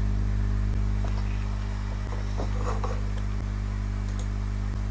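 Steady electrical mains hum in the recording, with a few faint short clicks from a computer mouse.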